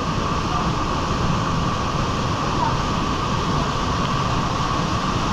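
Waterfall pouring into a churning pool, heard close up as a steady, loud rush of water.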